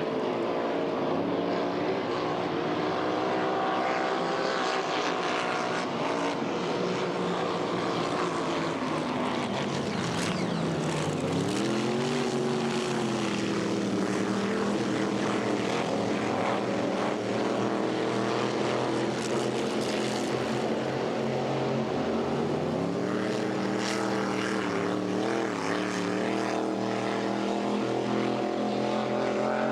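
Racing boat engine running at speed, its pitch dipping about ten seconds in and climbing back, then wavering up and down a few times later on.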